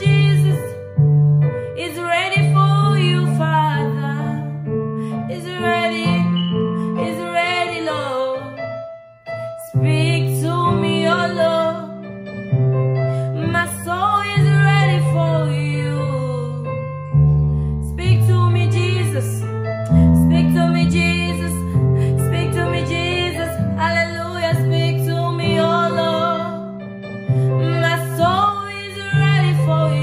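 A woman singing a worship song over keyboard accompaniment with long held bass notes.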